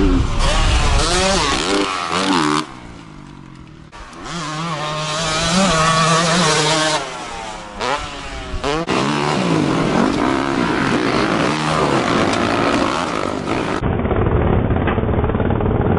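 Dirt bike engines revving and easing off as riders take jumps, the pitch climbing and falling repeatedly. The sound changes abruptly several times as one clip cuts to the next.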